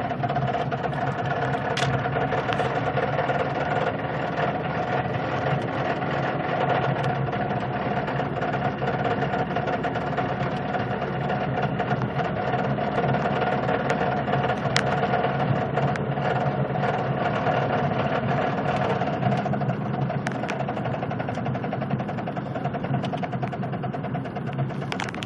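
Car driving slowly with a steady engine note and a fast, repeating knock.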